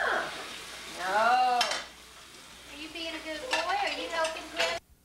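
Plates and dishes clattering in an open dishwasher rack as they are handled, with a voice calling out in between. The sound cuts off abruptly near the end.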